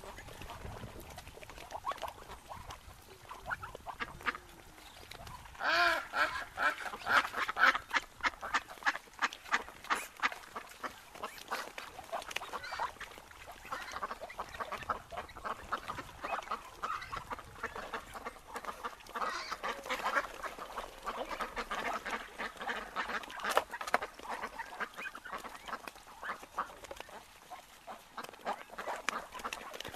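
A group of wild ducks calling and quacking on and off. The loudest burst of calls comes about six seconds in, with another busy stretch around twenty seconds.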